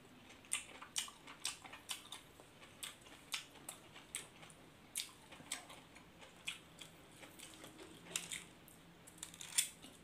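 A person chewing a mouthful of food close to the microphone: wet mouth clicks and lip smacks, about two a second.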